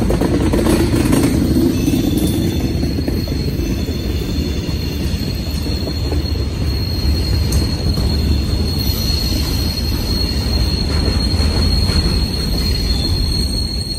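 Freight cars (tank car, gondola and covered hoppers) rolling past close by, making a steady heavy rumble of steel wheels on rail. A thin, steady high-pitched squeal rises over it and grows stronger through the second half.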